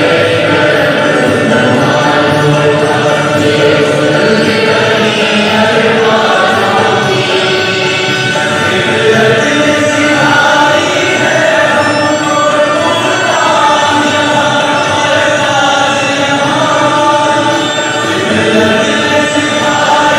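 Group of voices singing together in a continuous chant-like chorus.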